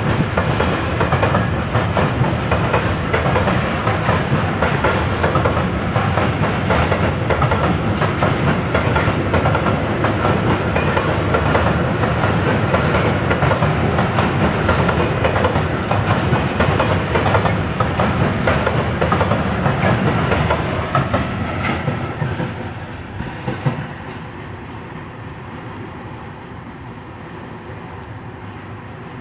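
A train passing: a loud steady rumble with the rapid clatter of wheels over rail joints. It fades away about three-quarters of the way through, leaving a low background rumble.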